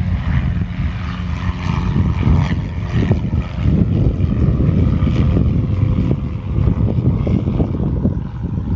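Light propeller plane's piston engine running, getting louder about two seconds in.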